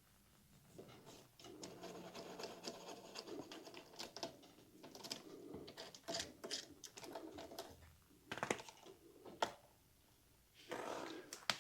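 A loose metal bicycle chain rattling and clinking in irregular runs of clicks as it is handled, just after it has been broken open with a chain tool.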